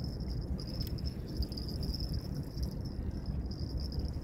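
A steady, high-pitched insect trill with a slight pulse, over a low rumble of wind on the microphone.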